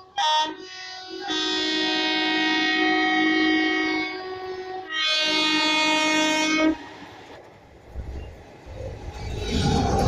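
Indian Railways locomotive air horn: a short blast, then a long blast of about three and a half seconds, then a shorter one. Near the end the low rumble of the train swells as it draws close.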